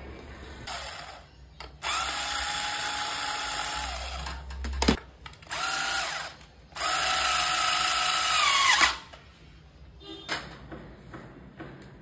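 Cordless drill-driver driving screws into the ceiling fan's blade brackets: a run of about three seconds, two short bursts, then another run of about two seconds, each with a steady motor whine.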